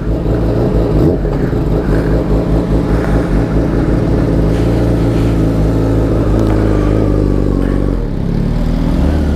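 2018 Kawasaki Ninja ZX-6R's 636 cc inline-four running through an Akrapovic slip-on exhaust. Its pitch rises briefly about a second in, holds fairly steady, then drops near the end.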